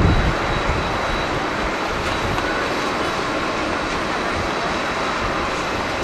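Boeing 767 jet airliner's engines heard from a distance as it rolls out just after touchdown: a steady rushing roar, with a brief louder low rumble at the start.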